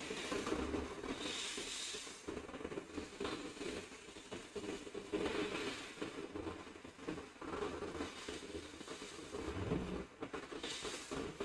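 Hot air rework station blowing steadily on a laptop motherboard, heating the solder joints of the power jack to desolder it; a steady hum under a hiss that swells and fades several times.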